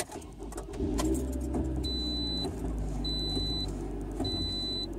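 Toyota RAV4 engine started with the key, catching about a second in after a few clicks and then idling steadily, heard from inside the cabin. From about two seconds in, a dashboard warning chime beeps about once a second, typical of the unbuckled-seatbelt reminder.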